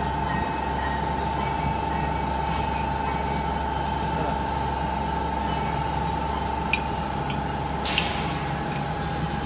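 Wire-mesh conveyor of a brake pad production line running, with a steady machine whine and hum and a faint squeak repeating about twice a second. A sharp click sounds near the end as a pad is picked off the mesh.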